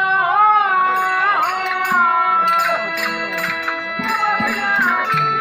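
Live traditional stage-play music: a voice singing a drawn-out, wavering line over steady sustained instrumental tones. From about a second in, sharp percussion clicks keep a regular beat of roughly two a second.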